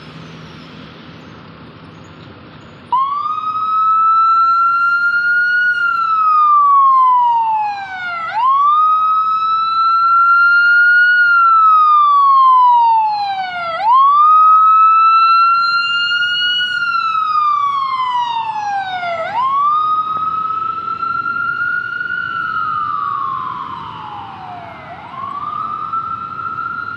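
SCDF ambulance's electronic siren on the wail tone, switching on suddenly about three seconds in over light traffic noise. Each cycle rises quickly and then falls slowly, repeating about every five and a half seconds, a little fainter near the end.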